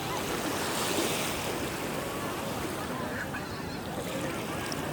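Sea waves washing in, a steady surf that swells about a second in and then eases.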